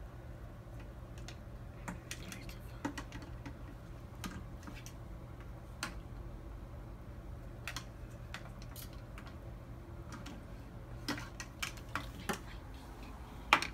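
Light, irregular clicks and taps of small plastic toys being handled, over a steady low hum; the loudest click comes near the end.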